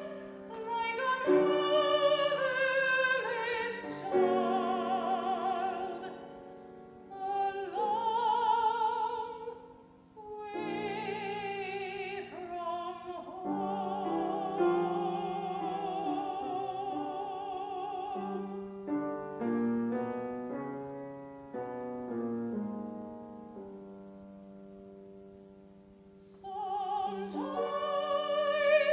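Classical soprano singing with vibrato over piano accompaniment, in an art-song setting of a spiritual. About two-thirds through, the voice drops out and the piano plays on more quietly before the soprano comes back in near the end.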